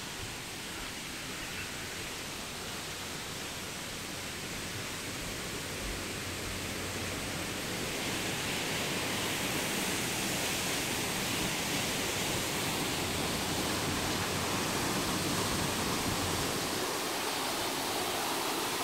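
Steady rushing of a tall waterfall, growing gradually louder.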